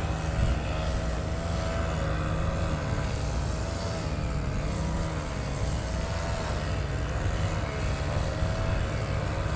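Small gasoline engines of a lawn mower and string trimmer running on the shore, a steady engine drone whose pitch wavers slowly up and down as the throttle changes.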